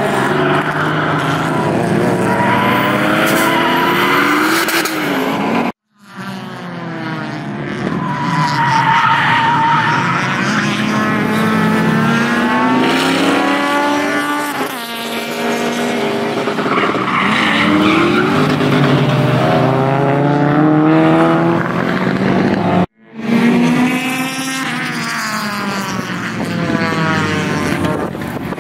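Several circuit cars lapping a track, their engines revving up and down through the gears as they take the bends, with tyres squealing at times. The sound breaks off abruptly twice, about six and twenty-three seconds in, as one clip cuts to the next.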